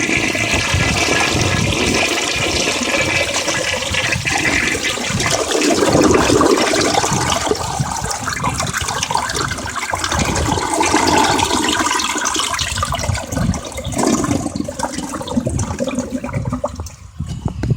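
Orion toilet flushing from a tank filled to overflow level: a long rush of water through the bowl and down the drain that dies away near the end. The water sounds slightly distorted by the phone's microphone.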